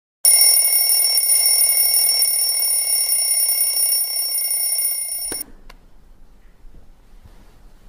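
Telephone ringing: one loud, steady ring that starts suddenly and cuts off abruptly with a click about five seconds in.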